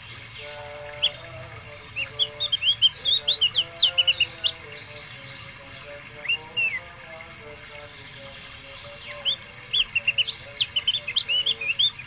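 Caged songbird singing: two rapid runs of sharp high chirps, about two seconds in and again from about nine seconds, with a short slurred call between them.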